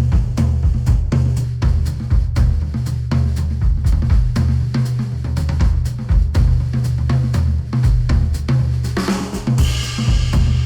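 Music with a drum kit and a heavy bass line, played through headphones and picked up by microphones at the ear cups; a bright, noisy swell comes in about nine seconds in.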